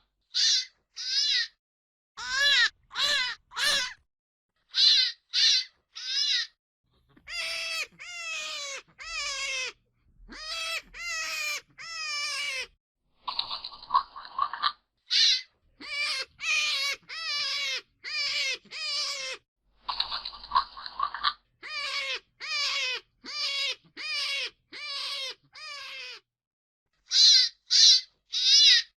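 A hare giving a series of short, wavering, high-pitched squealing calls, in clusters of two to five with silences between. Twice, about halfway and again a few seconds later, a short burst of hissing noise comes in place of the calls.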